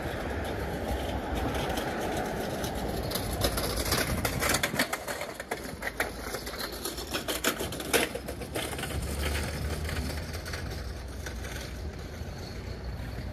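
Street traffic noise with a steady low rumble. Through the middle of the stretch there are several seconds of rapid clicking and rattling.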